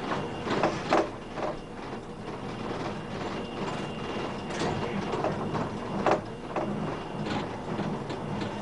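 NGT8 tram running along street track, heard from inside the car: a steady running noise with irregular knocks and rattles from the wheels and car body, the loudest about a second in and again about six seconds in.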